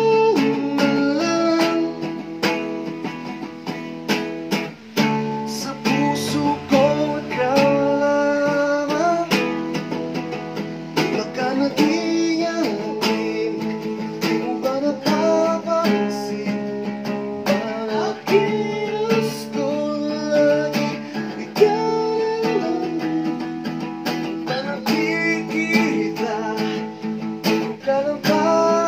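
Acoustic guitar strummed steadily while a man sings a Pinoy rock song into a microphone.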